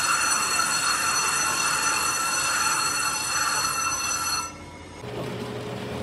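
Brake lathe cutting bit scraping across a spinning brake rotor as it resurfaces the disc: a loud, high metallic squeal with several steady tones that stops abruptly about four and a half seconds in. After a brief lull a machine motor hums steadily.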